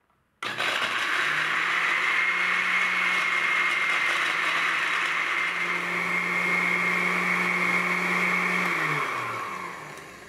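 Countertop blender with a glass jar grinding vanilla cookies into fine crumbs. The motor starts abruptly, runs steadily, then is switched off about nine seconds in and winds down, its hum falling in pitch as it fades.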